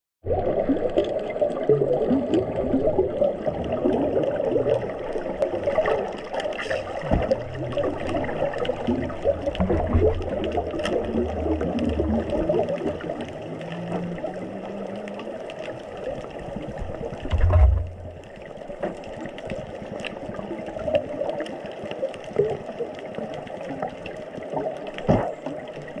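Underwater sound picked up by a camera submerged in open water: a muffled steady rush of water with scattered crackles and clicks, and a dull low thump a little past halfway.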